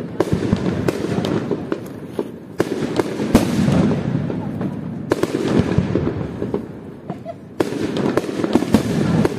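Aerial firework shells bursting in a fireworks display. A fresh volley of loud bangs comes about every two and a half seconds, with crackling and rumbling echo in between.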